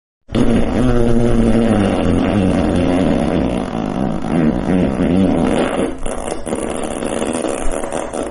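A long fart sound effect: one continuous blast of about eight seconds with a low, wavering pitch, starting abruptly after a brief silence.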